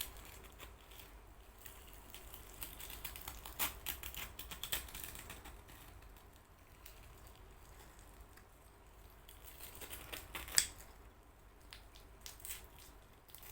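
Faint, scattered small clicks and crackles of something being handled, with one sharper click about ten and a half seconds in.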